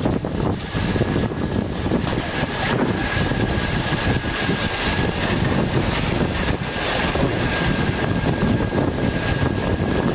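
Link-Belt diesel pile hammer working on its crane: dense, continuous machinery noise full of irregular knocks, with a faint steady high-pitched whine.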